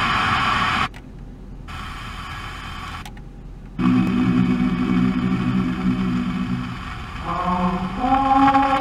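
Car FM radio being tuned between stations: a loud, hissy signal cuts off under a second in and the sound drops almost out while the tuner changes frequency, then from about four seconds in a station comes in with long held notes that shift in pitch near the end.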